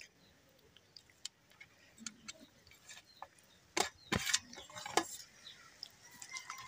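Eating by hand from a steel bowl: fingers mixing wet rice, dal and saag, with scattered soft clicks and wet smacks. The sharpest come about four and five seconds in.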